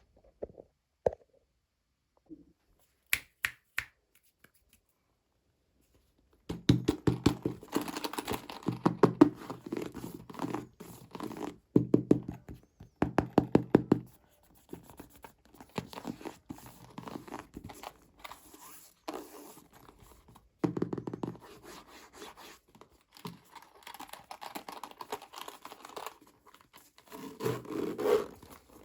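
Toy packaging being unboxed by hand: a few separate taps and knocks, then from about six seconds in, bursts of rapid crackling, crinkling and tearing of plastic and cardboard packaging.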